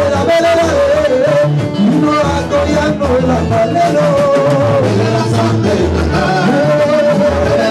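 Live Congolese gospel band: men singing a melody together over guitar, keyboard and drums at a steady beat.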